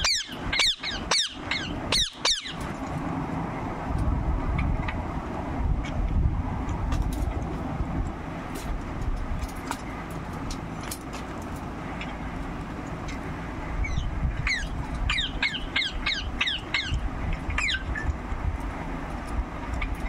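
Rose-ringed parakeet giving runs of quick, high chirps that fall in pitch, one burst right at the start and another in the last third, over a steady low rumble.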